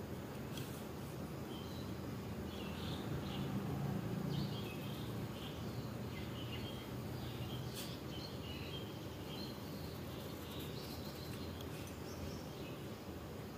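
Small birds chirping on and off over a steady low background hum.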